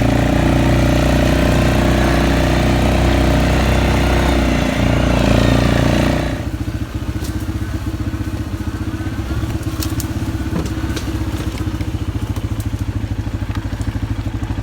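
A small vehicle engine running at high revs, then dropping about six seconds in to a steady, pulsing idle.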